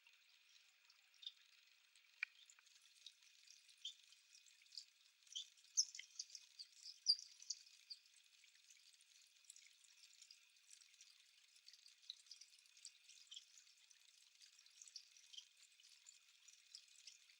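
Faint, high, short chirps and calls from small aviary finches, scattered throughout and busiest about five to eight seconds in.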